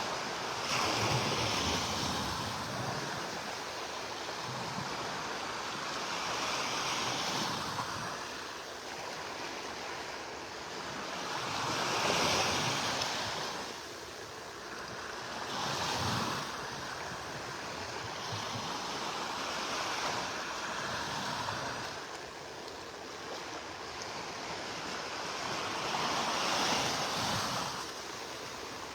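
Small Gulf of Mexico waves breaking and washing up the sand, each swell of surf rising and falling every few seconds, with a little wind on the microphone.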